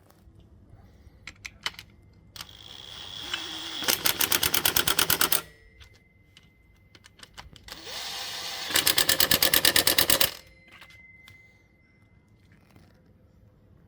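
Impact wrench run twice on a bolt: each time it spins up and then hammers in a rapid even rattle for about a second and a half before stopping. A few faint clicks of tool handling fall between the runs.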